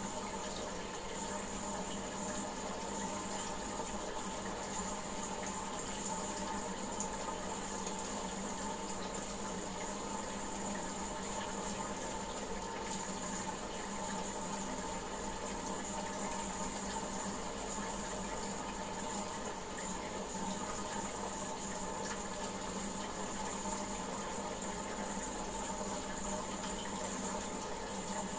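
Water running steadily in a goldfish aquarium, as stirred by the tank's filter or pump, with a steady hum under it.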